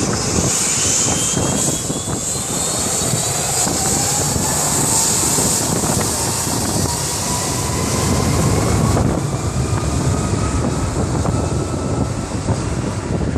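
Jet airliner passing low overhead on its landing approach: loud engine noise with whining tones that slide down in pitch as it goes by.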